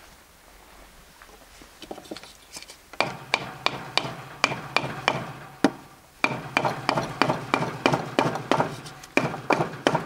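Wooden block tapping a short wooden rod to seat the bullet in the chamber of a muzzle-free kammerlader rifle: quick repeated knocks, about three a second, starting a few seconds in, with a brief pause about six seconds in.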